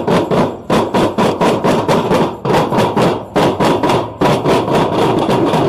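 Loud, fast drumming, about five strokes a second, played in short phrases with brief breaks between them.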